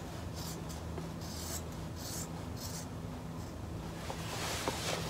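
Scissors snipping through a wetsuit's neoprene along the knee-panel seam, cutting away the old knee pad, in a string of short, crisp rasping cuts. Near the end the neoprene rustles as the suit is handled. A steady low hum runs underneath.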